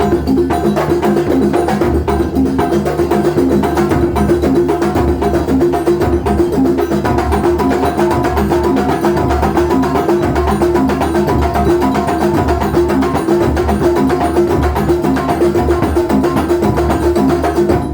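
Live Banyuwangi kuntulan music: a traditional percussion ensemble playing a steady, dense rhythm of drum and struck-instrument beats, with pitched tones sounding underneath.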